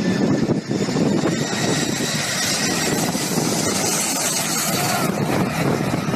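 An Airbus A340's four jet engines at go-around thrust: a steady, loud roar with a high whine over it that grows stronger in the middle.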